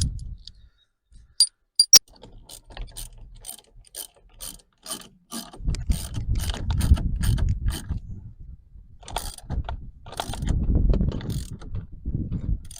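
Ratchet wrench clicking steadily, about three clicks a second, as it turns the forcing screw of a three-prong puller set on a steering wheel, with a couple of sharp metal clicks before it and low rumbling under it from the wheel and puller being worked.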